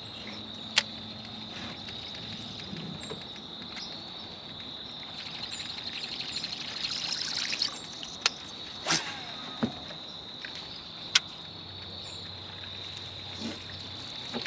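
Quiet outdoor pond ambience under a steady high-pitched hum, broken by a few sharp clicks and knocks from the fishing tackle and boat, with a short run of rapid ticking about five to seven seconds in as a lure is cast and reeled in.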